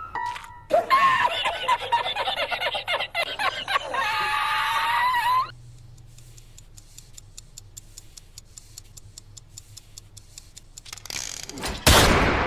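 A cartoon character wails in distress for about five seconds, ending in one long drawn-out cry. A quiet stretch of faint, fast ticking follows, then a single loud revolver gunshot with a ringing decay near the end.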